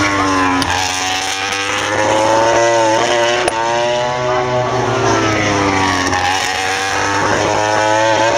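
Racing motorcycles at full throttle passing on the circuit. The engine note climbs in pitch through the revs and then drops away several times as bikes come by and shift up.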